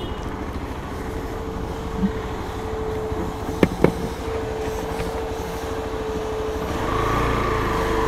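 Hero Xpulse 200's single-cylinder engine running at low speed as the motorcycle rolls in, with a steady whine alongside. There are two short clicks about three and a half seconds in, and the engine gets a little louder near the end.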